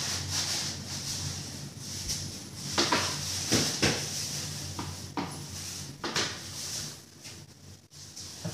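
Kitchen handling sounds from things being moved about on a counter: about five sharp knocks and clatters between roughly three and six seconds in, over a steady low hum.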